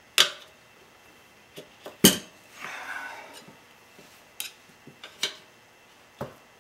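Steel tire iron clinking and clanking against a spoked motorcycle wheel's metal rim as the second bead of the tire is levered on by hand. Several separate sharp metal clinks, the loudest about two seconds in.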